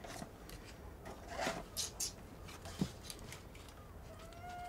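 Kitchen handling sounds, rustling and scraping at the counter, with a soft knock about three seconds in, then a house cat meowing once near the end.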